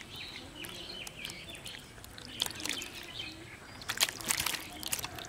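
Live fish thrashing and splashing in a shallow basin of water: a few quick splashes about two and a half seconds in and a louder cluster around four seconds in. Birds chirp in the background.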